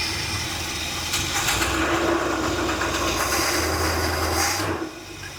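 Chevy 454 big-block V8 running while first gear is tried through a Turbo 400 automatic that is nearly out of fluid. The engine note deepens and grows heavier about a second and a half in, then falls away near the end.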